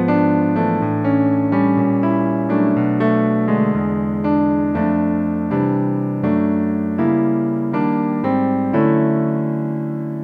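Piano music: notes struck at an even pace over held chords.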